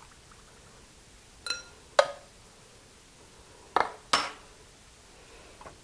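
Four sharp clinks of metal against a glass mixing bowl, in two pairs about two seconds apart, the first pair ringing briefly.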